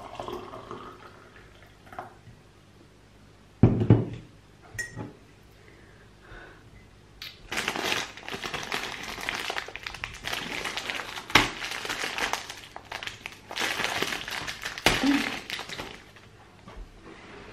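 Tea pouring from a French press into a ceramic mug, rising in pitch as the mug fills. A thump about four seconds in, then a plastic snack wrapper crinkling in spells for several seconds as it is opened.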